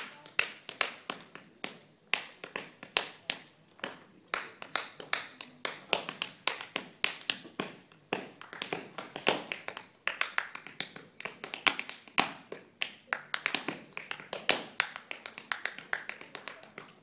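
Tap shoes striking a hard floor in a solo tap dance with no music: quick runs of sharp, crisp taps in rhythmic phrases, broken by brief pauses.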